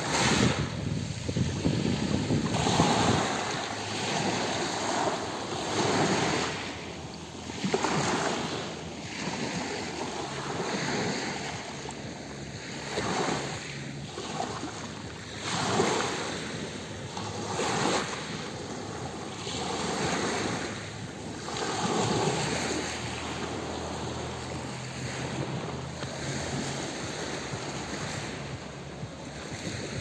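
Small Black Sea waves breaking on a pebble beach and washing back over the stones, a surge about every two to three seconds.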